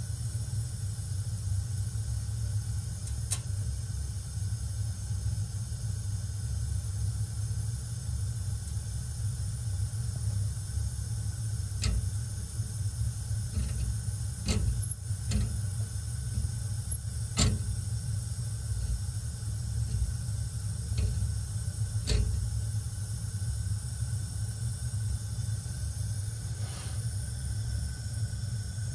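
Bunsen burner flame burning steadily, a low rumble with a hiss over it. Several sharp clicks sound over it, most of them in the middle, the loudest about halfway through.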